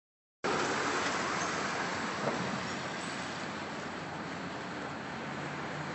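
Steady city traffic noise, a continuous wash of street sound that starts abruptly about half a second in.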